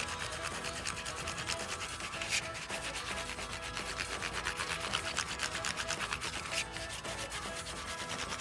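Crayon scribbling on a paper plate: rapid back-and-forth strokes of wax rubbing on paper.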